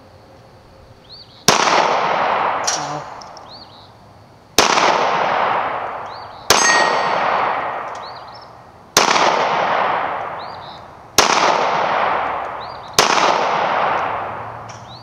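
Polish P-64 pistol in 9×18 mm Makarov fired six times at a slow pace, about two to three seconds apart. Each sharp shot is followed by a long echo that dies away over a couple of seconds.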